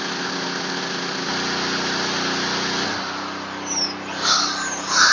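Stick-welding arc crackling and hissing, with the PK160A inverter welding generator's engine running steadily under the welding load. About three seconds in the arc stops and the engine's note drops. A few short, high-pitched sounds follow near the end.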